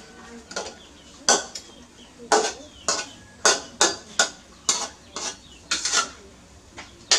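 Metal spatula scraping and clanking against a wok while stir-frying vegetables, in about a dozen quick, irregular strokes.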